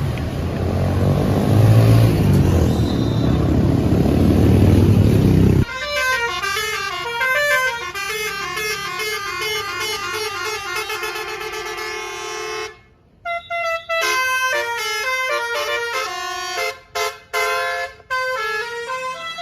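A bus's engine runs loud for the first five or six seconds, then a basuri telolet musical horn plays a quick warbling melody over a held lower note. The melody cuts off sharply about two-thirds of the way through and comes back as a string of short, choppy notes with brief breaks.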